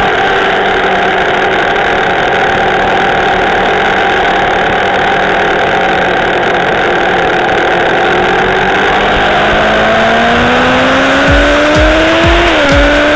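Kawasaki ZX-10R's inline-four engine heard from on board, holding a steady note through a long corner, then rising in pitch as the throttle opens about nine seconds in, with a quick dip at an upshift near the end before it climbs again. Steady wind rush over the microphone, with low buffeting thumps near the end.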